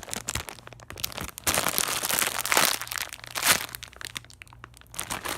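Thin plastic packaging crinkling and crackling irregularly as it is handled and opened by hand.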